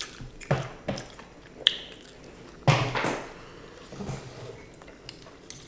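Eating crispy fried chicken wings: scattered short crunches and mouth sounds, with a louder noisy crunch about three seconds in and a brief light clink of a dish near the middle.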